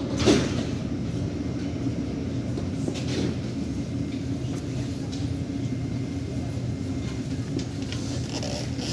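Interior of a Helsinki metro car: the train's steady low rumble and hum, with one sharp knock just after the start.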